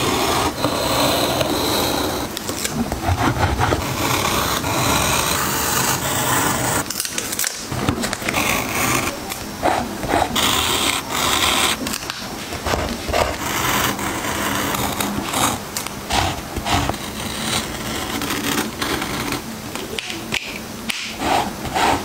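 Close-up paper-crafting sounds: a craft knife blade scratching and scraping across washi-tape stickers as they are cut out and lifted off their backing sheet, with paper rustling and many small clicks and taps.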